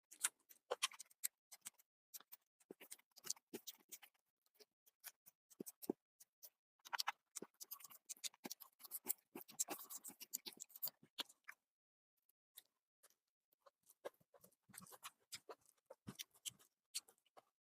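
Close-miked eating sounds of chicken liver curry being chewed: irregular wet clicks and smacks, densest in the middle, with a short pause about two-thirds of the way through.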